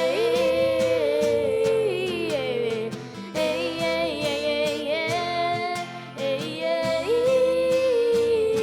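Sertanejo duet by two boy singers: two voices in parallel harmony hold long, wavering notes in phrases of a few seconds, over instrumental backing with a steady beat.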